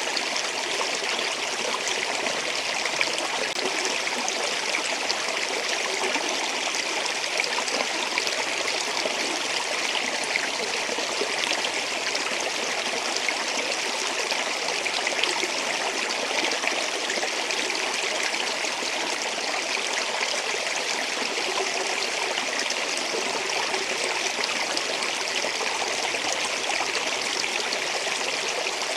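Water flowing steadily: an even, hissy rush with fine splashing, strongest in the upper range with little low rumble.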